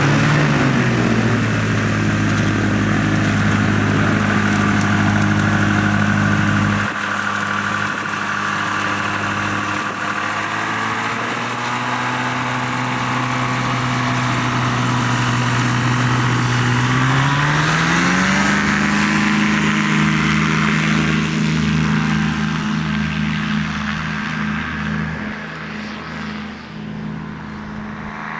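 Dragonfly ultralight tug's two-stroke engine running on the ground, with a quick blip of the throttle at the start and a steady lower note from about seven seconds in. At about seventeen seconds the throttle opens, the pitch rises to a steady full-power note for the takeoff, and the sound slowly fades near the end as the aircraft climbs away.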